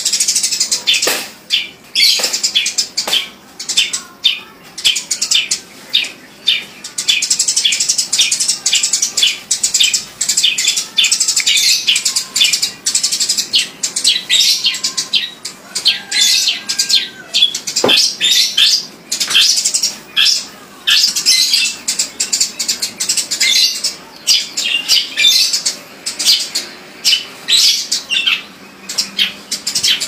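Sparrow chirping loudly and without let-up, a rapid run of short high chirps several times a second.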